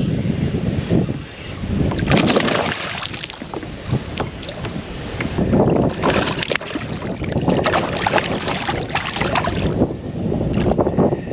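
Water splashing and sloshing around a fishing kayak in irregular surges, with small knocks and clicks mixed in.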